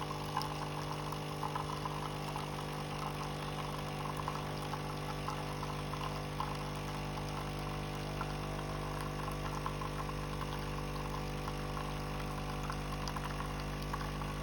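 De'Longhi Dinamica bean-to-cup coffee machine brewing: its pump hums steadily while coffee runs out into the cup with a fine crackle.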